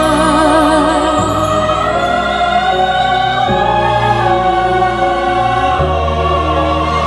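Classical (operatic) singing with a wide, regular vibrato over orchestral accompaniment with sustained low notes. The voice rises and falls between held notes.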